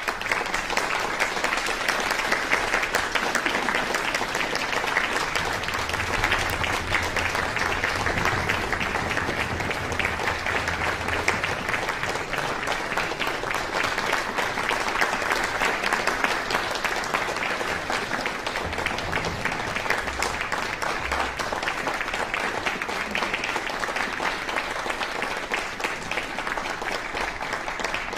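Audience applauding, starting all at once and holding steady.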